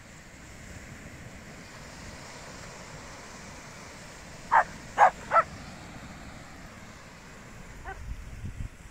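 A small dog barks three times in quick succession about halfway through, over the steady wash of surf.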